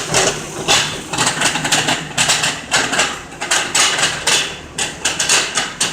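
Lincoln MKZ all-wheel-drive's drive shaft clunking and rattling in a rapid, irregular run of knocks while the car runs, the sign of a bad drive shaft carrier bearing.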